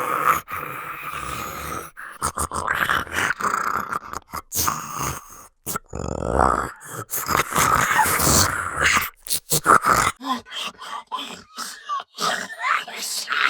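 Gollum-style creature voice sound effect: throaty groans and grunts in short, broken bursts. About ten seconds in the sounds turn quieter and thinner.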